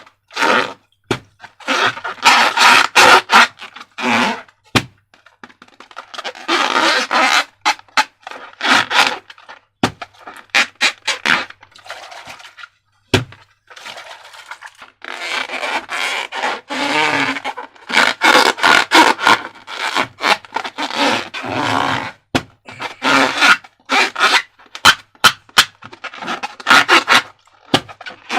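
Slime and rubber balloons being handled and squished by hand: bursts of scraping and crackling, full of sharp sticky clicks, with short pauses between them.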